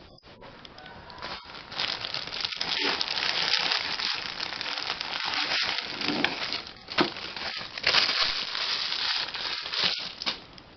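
Packaging crinkling and rustling as a parcel is unwrapped by hand, with irregular crackles and snaps.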